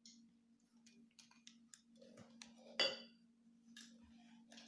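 Faint clicks and knocks from a flask and glass being handled, with one sharper clink that rings briefly about three seconds in. A steady low hum runs underneath.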